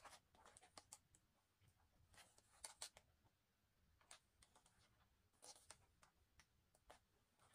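Faint, scattered rustles and light ticks of the glossy pages of a large photobook being handled and turned, with near silence between.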